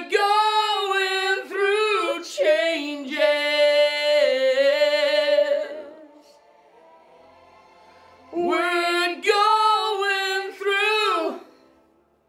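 A woman singing a vocal line unaccompanied into a studio microphone, with no backing track audible: two sung phrases with a pause of about two and a half seconds between them.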